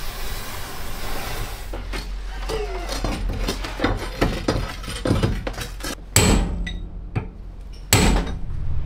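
Metal clanking from ship dismantling work: a run of quick knocks and clinks, then two loud metal strikes that ring, about six and eight seconds in.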